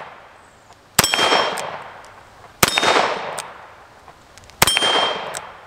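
Three shots from a Diamondback Sidekick .22 revolver, a second and a half to two seconds apart. Each is followed at once by the ringing of a hit steel target plate, which dies away over about a second.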